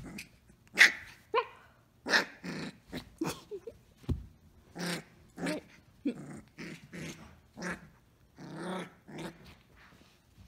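Samoyed puppy play-barking and growling: a rapid run of short yaps and growls, about two a second, the loudest about a second in.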